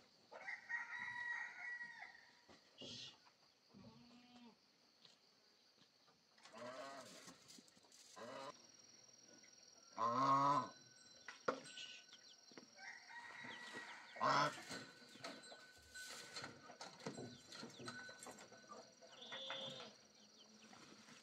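Farmyard chickens clucking, with a rooster crowing among them; the calls come and go, the loudest about ten seconds in and again about fourteen seconds in.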